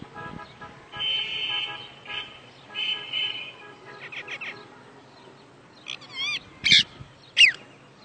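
Caged green parakeets calling: buzzy chattering calls, then a run of quick chirps, then warbling and falling whistles with a sharp squawk near the end, the loudest of them.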